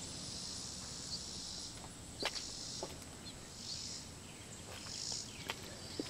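Faint outdoor ambience of insects buzzing high-pitched, swelling and fading a few times, with a few soft clicks, one a little over two seconds in.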